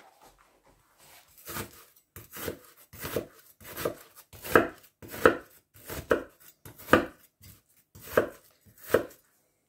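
Kitchen knife chopping an onion on a plastic cutting board: a series of separate sharp knife strokes, roughly one or two a second, starting about a second and a half in.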